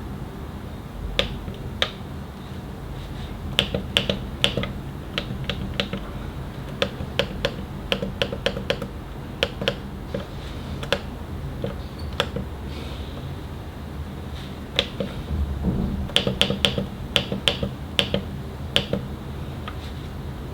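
Buttons on a Canon Selphy CP1200 photo printer being pressed to crop a photo: short sharp clicks, some single, some in quick runs of several a second, over a low steady hum.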